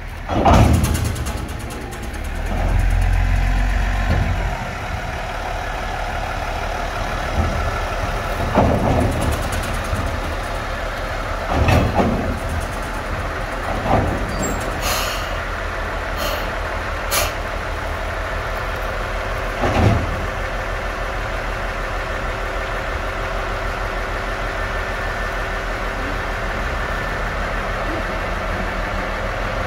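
Diesel railcar running on a railway turntable: a steady engine idle, with a deeper engine rumble for a couple of seconds near the start and about five heavy clunks spread through the first twenty seconds as the car and turntable move.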